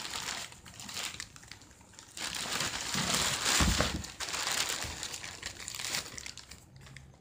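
Plastic courier mailer bag crinkling and rustling as hands handle it and open it with a utility knife, louder through the middle, with one dull knock a little past halfway.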